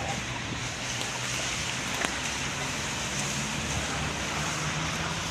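Street traffic on a wet, slushy road: a steady hiss of tyres on wet asphalt over the low running of car engines, with one brief click about two seconds in.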